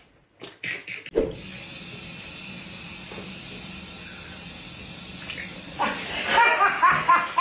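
Liquid pouring steadily out of a plastic bag into a mouth, then gushing and splashing over a face about six seconds in, with loud laughter over the splash.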